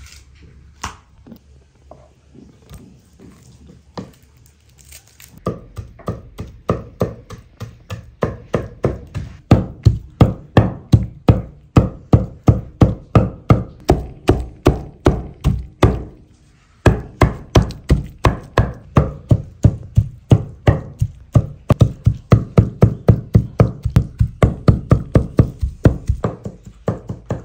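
A large kitchen knife chopping raw beef by hand on a wooden board, mincing it into ground meat. After a few scattered cuts, it settles into a fast, even rhythm of thuds, about four a second, with a short break just past halfway.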